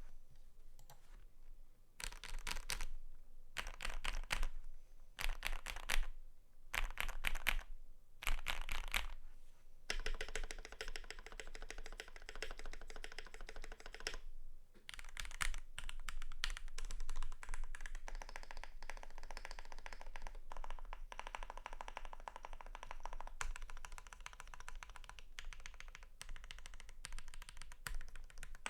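Keychron Q3 mechanical keyboard with lubed Gateron PRO Red linear switches, a steel plate and PBT keycaps being typed on. First come short bursts of fast keystrokes with brief pauses between them, then from about ten seconds in, continuous steady typing.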